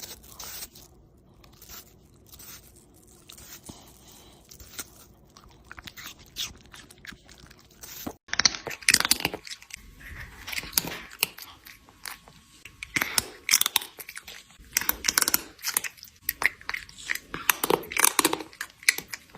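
An animal chewing something crunchy, with irregular crisp crunches. They are faint at first and become louder and closer together from about eight seconds in.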